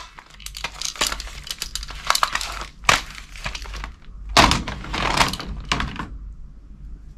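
Plastic toy guns clattering and knocking against one another as they are handled and laid into a box full of toy weapons. The clatter is busiest about four and a half seconds in and dies down after about six seconds.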